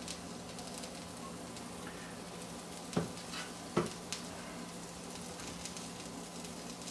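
Egg omelette mixture with vegetables sizzling steadily in a frying pan. Two light knocks about three seconds in.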